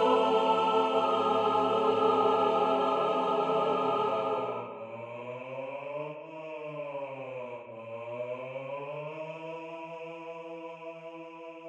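Choir holding a full sustained chord on 'sand', which drops away about four and a half seconds in. Low voices then hum on 'mm', sliding down and back up in pitch before holding and fading near the end.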